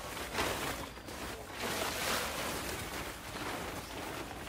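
Blue plastic tarp rustling and crackling as it is gathered up and dragged along stone paving, the noise swelling and easing a few times.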